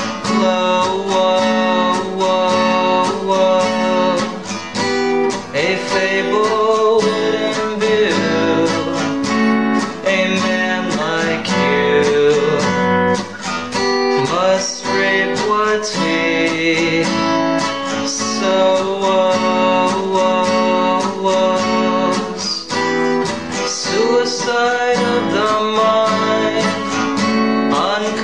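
A song: strummed acoustic guitar chords moving through changing progressions, with a voice singing over them.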